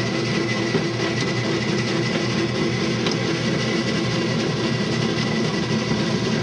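Electric bread-dough mixer running steadily at medium speed, kneading a large batch of bread dough, with a constant motor hum and whine.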